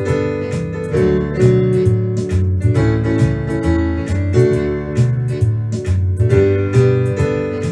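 Instrumental backing track with no vocals: strummed acoustic guitar at a steady beat over a bass line that moves between notes.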